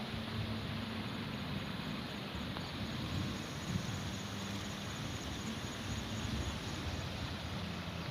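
Steady rushing of floodwater, with a faint low hum underneath.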